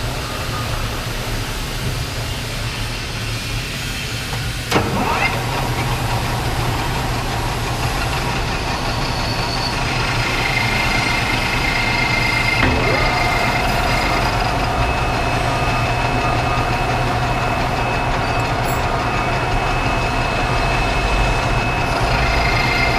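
Metal lathe running with a steady low motor hum while a pipe end is being turned to a bevel. There is a sharp knock about five seconds in, and from about ten seconds in a steady high whine joins the hum.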